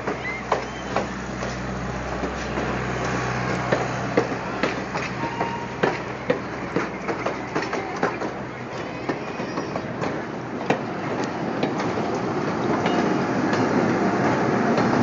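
Passenger train coaches rolling slowly past at close range, their wheels clacking over the rail joints every half second to a second over a steady rumble. Near the end the sound grows louder as a diesel locomotive comes alongside.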